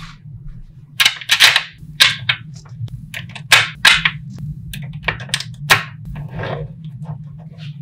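Small magnetic balls snapping together in sharp clicks and clacks as rings of them are pressed onto one another, in irregular groups of one to three snaps about every half second to second.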